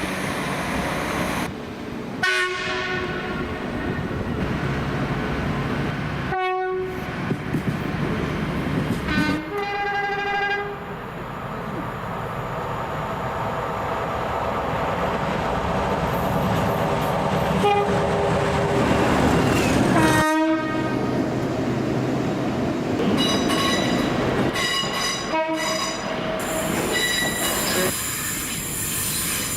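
Train horns sounding in a run of separate clips of passing trains, each cut off abruptly by the next, heard over the steady rumble of the trains on the rails. The horns give held blasts at several different pitches from train to train.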